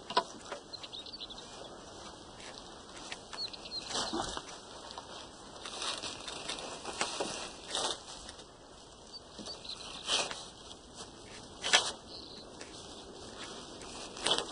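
A fishing net being flung and shaken out over wooden drying poles, swishing and flapping in irregular bursts, the loudest about four, ten and twelve seconds in, over a steady outdoor hiss.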